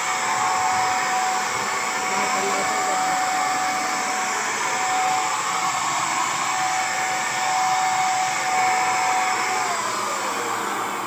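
Buildskill BPS2100 750-watt HVLP electric paint sprayer running while spraying paint: a steady blower noise with a high whine. Near the end the whine falls in pitch and the noise fades as the motor spins down.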